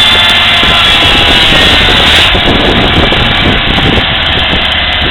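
Convertible ride-on mower's engine running steadily and loud, close by.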